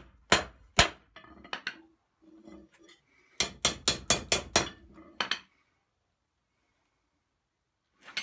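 Hand hammer striking red-hot rebar on a small cast-iron Harbor Freight anvil: two blows, a few lighter taps, then a quick run of about eight strikes. The hammering stops a little past halfway and it stays quiet after.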